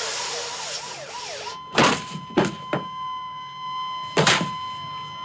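Film soundtrack: a police siren wailing for about a second and a half, then a steady high held tone, with four sharp bangs cutting through it.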